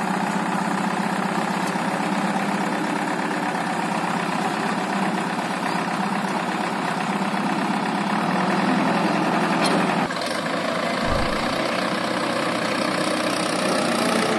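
Diesel engines of a backhoe loader and a Mahindra 575 DI tractor running steadily at idle while the loader works. About ten seconds in, the steady engine note changes.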